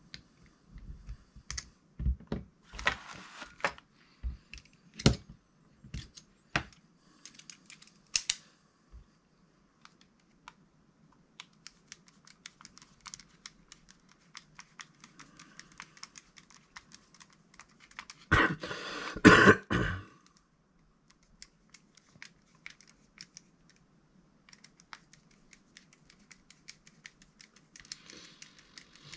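Clicks, taps and knocks of small plastic and metal parts being handled and fitted while an RC car's centre differential is reassembled by hand, with a louder burst of rattling about two-thirds of the way through.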